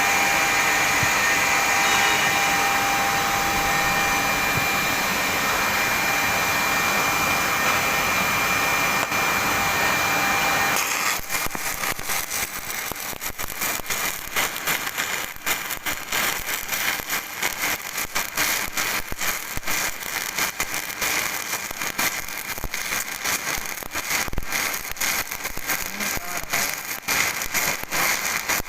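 Welding arc: a steady hiss for about the first eleven seconds, then, with a sudden change, the dense irregular crackle of stick (arc) welding.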